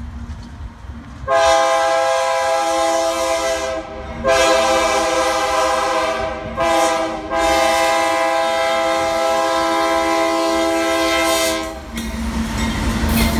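A BNSF GE C44-9W diesel locomotive's multi-chime air horn blows the grade-crossing signal: two long blasts, a short one and a long one. Near the end the locomotive passes close by, its engine and wheels rumbling.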